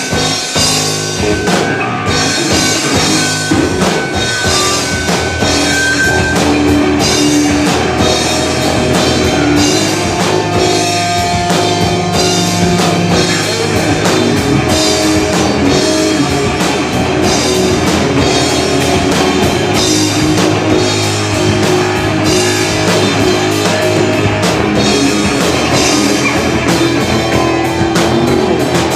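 Rock band playing live: a drum kit beating steadily under electric guitar, with long held notes.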